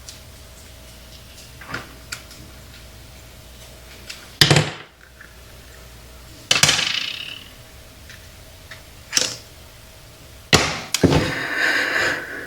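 Hand tools and small metal parts clinking and knocking on a workbench: several separate sharp clinks a couple of seconds apart, then a second or so of rattling clatter near the end, as of rummaging through tools.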